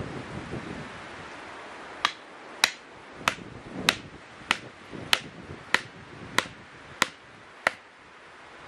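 A run of about ten sharp knocks at an even pace, a little under two a second, starting about two seconds in, with wind in the background.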